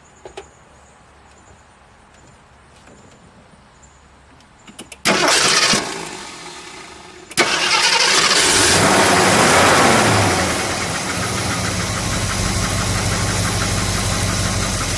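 1969 AMC Ambassador SST's 343 cubic-inch four-barrel V8 being started: the engine fires about five seconds in, runs up loud and fast for a few seconds, then settles into a steady, smooth idle.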